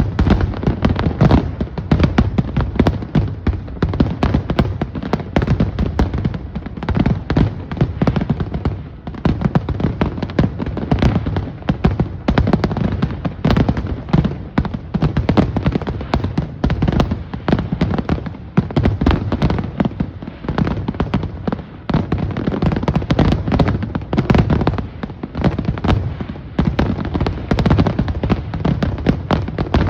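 Aerial fireworks bursting in a rapid, unbroken barrage of booms and crackles, shells going off faster than a listener can count.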